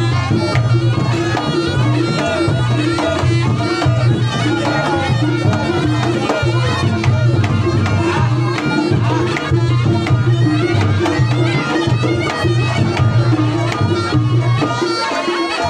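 Reog Ponorogo ensemble music: a reedy slompret shawm plays a wavering melody over kendang drums and an evenly repeating pattern of low gong and kenong beats.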